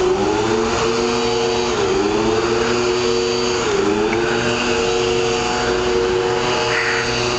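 Two-stroke chainsaw engine running at high revs, its pitch dipping and climbing back about every two seconds as the throttle is worked.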